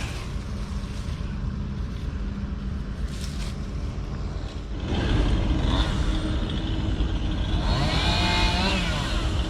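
An engine running, getting louder about five seconds in, with its pitch rising and falling briefly near the end.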